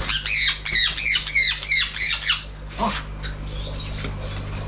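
Conure giving a quick run of about eight harsh squawks, each sweeping down in pitch, over the first two and a half seconds, then only fainter sounds.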